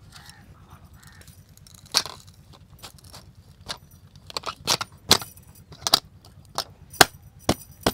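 Sharp metallic clicks and clinks from the latch and small outlet hatch at the base of a metal grain storage drum being worked by hand. It comes as about ten separate clicks, starting about two seconds in and coming more often in the second half.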